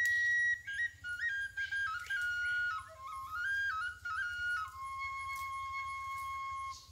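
Background music: a solo flute playing a stepping melody, ending on a long held note near the end.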